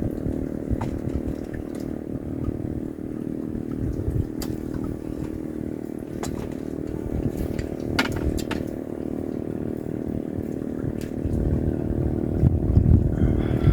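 A motor running steadily with a low rumble, with a few sharp clicks, and growing louder near the end.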